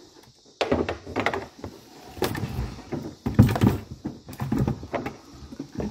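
Screwdriver tightening a hose clamp on a hose over a barbed fitting, with irregular bursts of scraping, clicking and knocking as the tool and the fitting are worked by hand.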